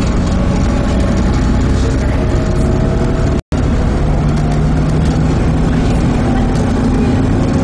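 Volvo B7TL bus's diesel engine running loud and steady under way. In the second half the engine note climbs slowly as the bus pulls. The sound cuts out completely for a split second about halfway through.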